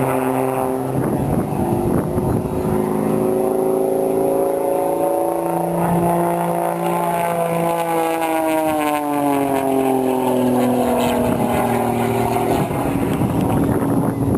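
Propeller aerobatic plane's piston engine droning as it flies the display. Its pitch rises slowly to a peak about halfway through, then falls away again.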